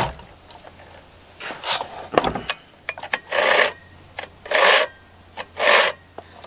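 A few short rasping scrapes of metal on metal, about one a second, from the chainsaw's chain being worked along the bar by hand after tensioning, on a clone of the Stihl MS660.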